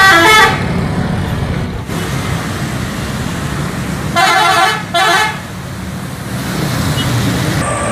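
Bus horn: a short multi-tone blast ending about half a second in, then two more short blasts about four and five seconds in, over steady bus engine and traffic noise.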